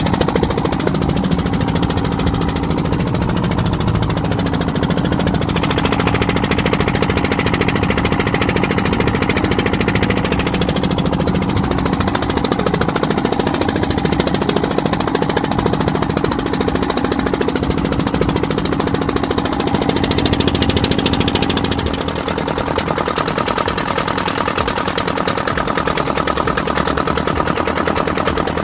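Small fishing boat's inboard engine running steadily with a rapid, even knocking beat, its note shifting slightly about three quarters of the way through.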